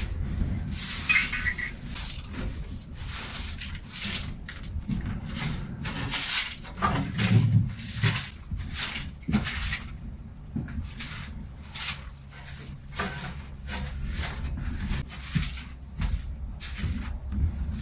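Irregular scraping, rubbing and knocking as things are shifted and cleaned inside a sheet-metal hut, over a steady low rumble of strong wind outside.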